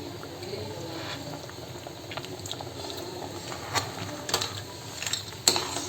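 Thick coconut crab curry bubbling at a steady boil in the pot, with a few short clicks.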